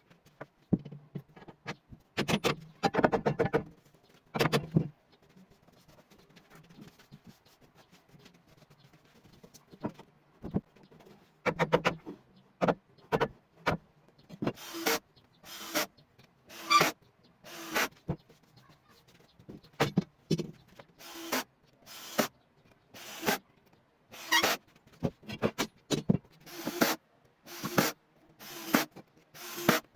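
Workshop handling noises with scattered knocks and clatter, then a run of regular rubbing strokes on wood, about one a second, from a hand tool being worked back and forth.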